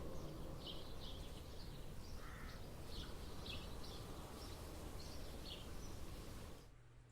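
Faint small birds chirping in quick short calls over a low, steady outdoor background noise, which drops away to near silence near the end.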